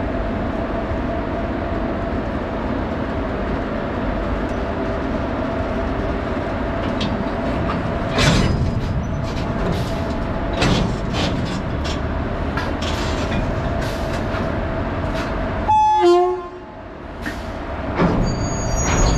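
WAG-7 electric locomotives running slowly at shunting speed, a steady machine hum from the locomotive with a constant tone, broken by several loud metallic clanks of wagon and coupler gear. Near the end a short horn toot sounds.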